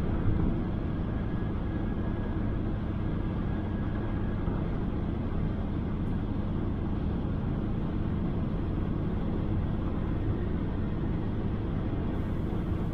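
Steady running noise of a 2006 Toyota Innova's 2KD 2.5-litre turbodiesel at high speed on a highway: a constant engine drone blended with tyre and wind noise, heard from inside the cabin.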